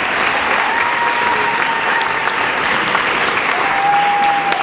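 Theatre audience applauding steadily, with a couple of long held shouts from individual voices carrying over the clapping.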